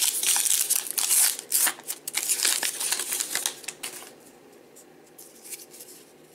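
A stack of cardboard baseball trading cards being handled and flipped through, with quick clicks and rustling of card on card. It quiets down about four seconds in.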